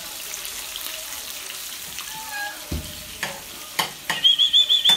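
Dogs playing on a tile floor: light scuffling with a few clicks and one low knock, and near the end a quick run of about six high, squeaky chirps.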